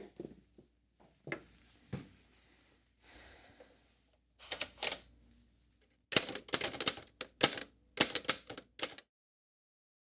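Old manual typewriter being typed on: a quick run of sharp key strikes for about three seconds, starting about six seconds in. Before it come a few separate knocks and a short scrape.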